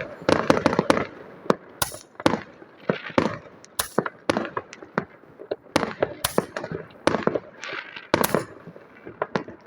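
Fireworks going off: a string of sharp, irregularly spaced bangs and crackles, some with a short echo after them.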